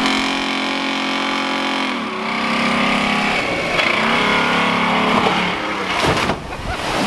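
Off-road vehicle engine running and revving. Its pitch drops about two seconds in and then rises again.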